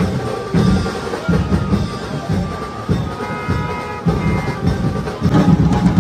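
Procession band drums beating a heavy, steady rhythm, about three beats every two seconds, with a few held higher notes about halfway through.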